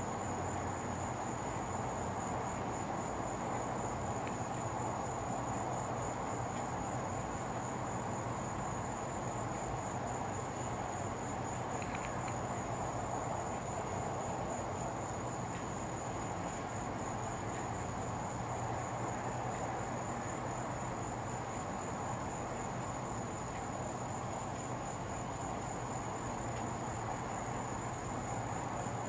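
Crickets trilling in one continuous, slightly pulsing high-pitched trill, over a steady low hum and background hiss.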